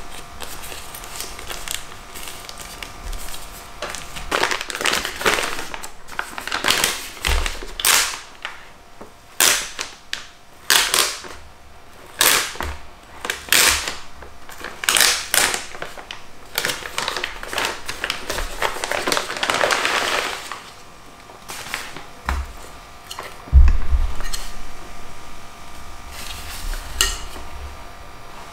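Plastic and paper packaging being unwrapped by hand, crinkling and rustling in repeated bursts, with a single dull thump about two-thirds of the way through.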